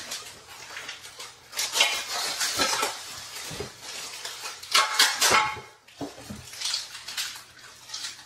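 Hands rummaging inside a cardboard shipping box, packaging rustling and small loose parts clinking against each other in several bursts, loudest about five seconds in.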